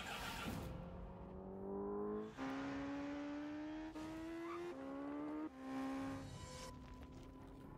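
Honda 1000 cc superbike's inline-four engine accelerating hard through the gears. Its pitch climbs steadily and drops sharply at each of several upshifts, then it fades near the end.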